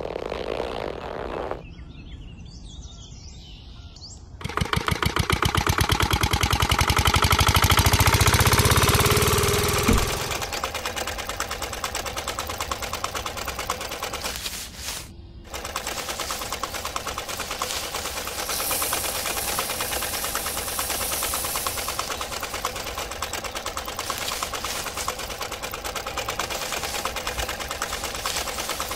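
Small electric motor in a model engine driving a miniature threshing drum through a rubber belt: a fast, steady mechanical rattle. It starts about four seconds in, is loudest for the next few seconds, and settles to a steadier rattle after about ten seconds, with a hissing rustle as wheat stalks are fed against the spinning drum.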